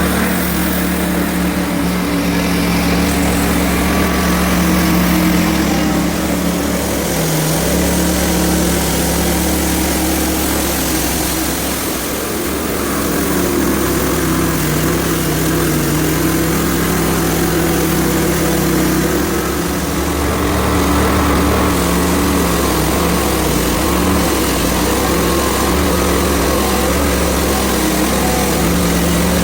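Small gasoline engine of a Hudson HFE30 band sawmill running steadily, with a brief sag in pitch about seven seconds in.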